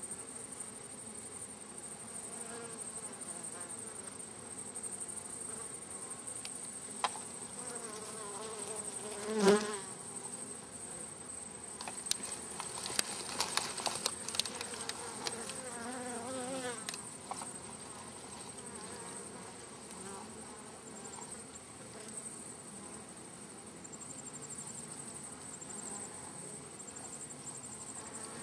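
Honeybees buzzing around their wild hive, single bees flying close past with wavering, rising and falling buzzes, the loudest pass about nine seconds in. A run of light clicks and taps comes between about twelve and seventeen seconds.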